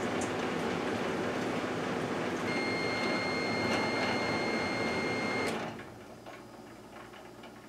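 1978 GE Dual Wave microwave oven running with a steady hum. A high steady tone joins about two and a half seconds in, and about three seconds later the oven shuts off with a click, leaving faint ticks.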